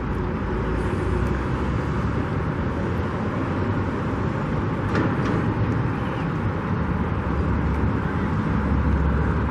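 Steady road traffic noise: an even rumble of passing vehicles with no distinct events.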